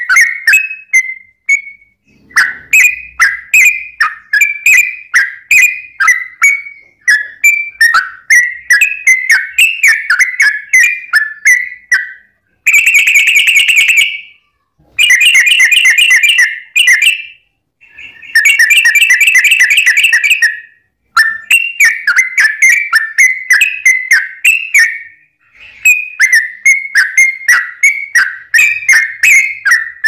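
Yellow-vented bulbul (trucuk) singing: quick runs of short, whistled chirp notes, broken near the middle by three rapid trills a second or two long, the long 'ropel' trills.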